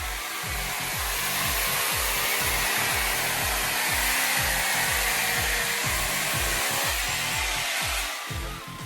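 A power tool running steadily with a loud, even rushing noise that cuts out near the end, over background music with a steady beat.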